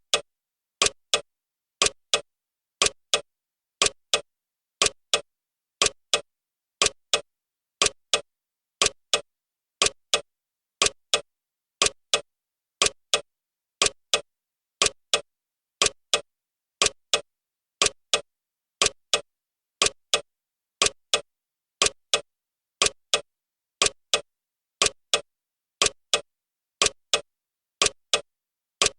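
Clock ticking sound effect of a countdown timer: sharp, even ticks, about two a second.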